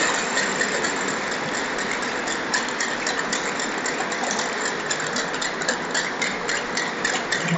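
Steady crowd noise from a large audience in a big hall, with short sharp clicks a few times a second from about two and a half seconds in.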